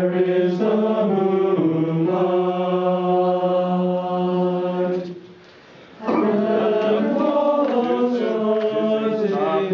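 Men's voices of a choir section singing held notes in rehearsal. There are two sung phrases, broken by a brief pause about five seconds in.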